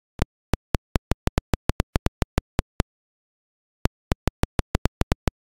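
ZX Spectrum one-bit beeper clicking: single sharp ticks that come faster, up to about seven a second, then slow again. After a pause of about a second, a second run of ticks starts.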